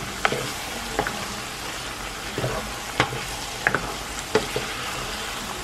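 Ground beef and diced potatoes sizzling in a metal pot while a wooden spoon stirs them, with several short knocks and scrapes of the spoon against the pot over a steady frying hiss.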